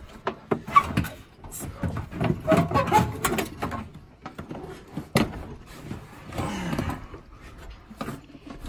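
Clunks, knocks and scraping of the metal-cased Toyota Prius hybrid battery pack as it is lifted and manoeuvred out of its bay, with a sharp knock about five seconds in.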